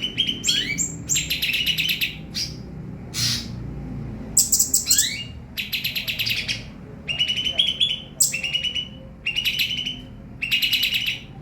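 A songbird singing in repeated rapid, buzzy trilled phrases of about a second each, broken up by short rising whistled sweeps.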